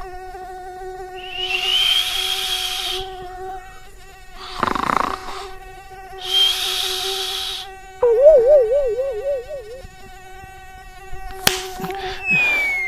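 Mosquito buzz sound effect: a steady, high, thin whine. Several other added effects cut in over it: two hissing bursts, a brief wobbling warble about eight seconds in, a sharp click and a falling whistle near the end.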